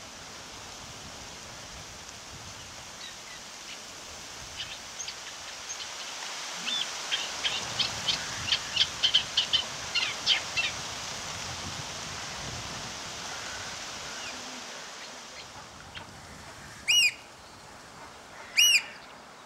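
Eurasian oystercatchers piping: a fast run of short, shrill pipes that builds from about five seconds in and stops at about eleven seconds, then two loud single calls near the end, over a steady background hiss.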